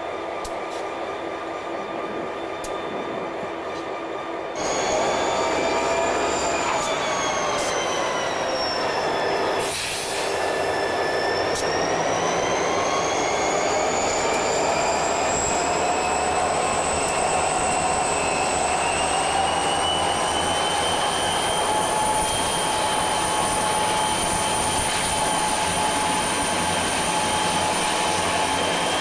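EMD SD40-2 and SD40T-2 diesel locomotives passing under power, their turbocharged V16 engines running with a high whine. It grows suddenly louder about five seconds in, sags in pitch, breaks briefly near ten seconds, then rises slowly and holds as the engines load up.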